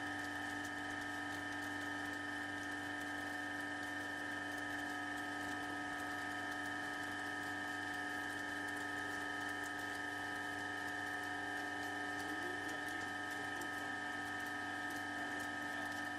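Seawater flake ice machine running: a steady hum with several held whining tones, and faint light ticks as ice flakes drop onto the pile below.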